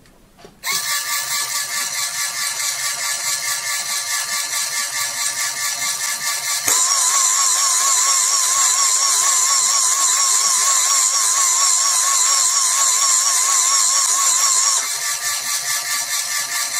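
Analox LM5 analyser's pumps running steadily with a fast, even buzz as the analyser cycles to refill its reaction chamber. About seven seconds in the sound grows louder and adds a higher whine, then drops back to the first steady buzz about fifteen seconds in.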